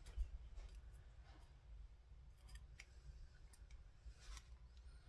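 Faint, scattered small metal clicks from a tiny Allen wrench and set screws being worked at a pistol's rear sight, with near silence between them.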